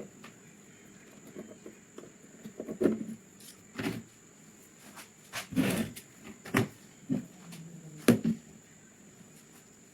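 Gun parts being handled on a workbench: about six irregular clicks and knocks, the loudest around the middle and near the end, over a faint steady high whine.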